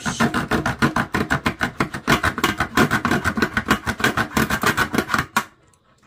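The small folding saw blade of a Plano multi-tool cutting a thin wooden stick in quick back-and-forth strokes: a fast, even rasping of about ten strokes a second that stops shortly before the end.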